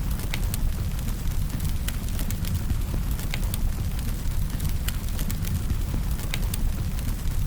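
Wood fire burning: a steady low rumble with scattered sharp crackles and pops from the firewood.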